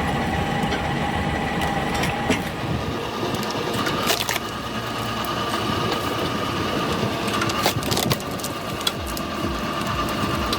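A log splitter forcing logs apart, the wood cracking and splintering several times over the steady running of the machine.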